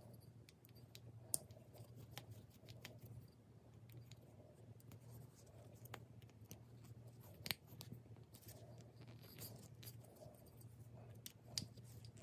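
Faint scattered clicks and scrapes of a small screwdriver working the screws on a spotlight's LED board, with two sharper ticks, one near the start and one about halfway, over a low steady hum.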